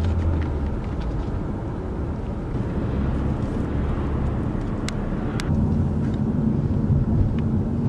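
Steady low rumble of road and engine noise heard inside a car cabin while driving at speed. Two short faint clicks come about five seconds in.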